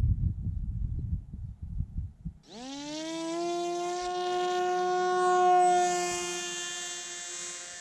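Low rumbling noise, then a brushless electric motor (NTM Propdrive 2836 2200kv) with its 6x4 propeller spinning up quickly to full throttle for a hand launch, holding a steady high whine. It grows louder, then slowly fades as the flying wing draws away.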